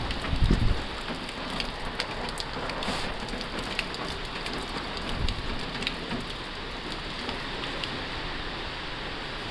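Heavy rain drumming on a tin roof: a steady hiss with scattered sharp drop ticks. A low rumble dies away under a second in.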